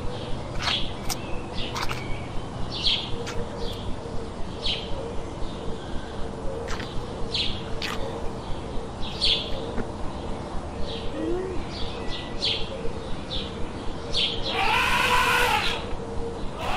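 Birds chirping over and over, short high calls about two a second, over a faint steady hum. Near the end a louder, drawn-out call with an arching pitch rises over them for about a second and a half.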